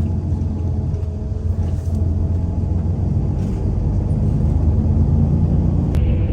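Steady low rumble of a moving vehicle, with a single sharp click near the end.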